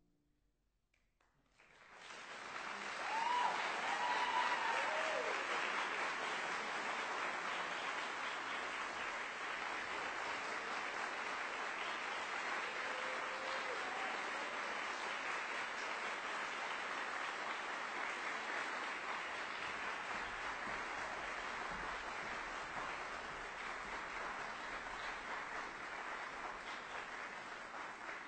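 Audience applauding, starting about a second and a half in and swelling quickly to a steady level. A few short calls rise over the clapping soon after it begins.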